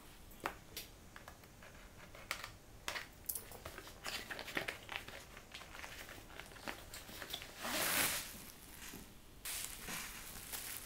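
Cardboard packaging being opened and handled: scattered faint taps, scrapes and short rustles. A louder rustle comes about eight seconds in, then plastic bubble wrap crinkles as the wrapped speaker bar is lifted out near the end.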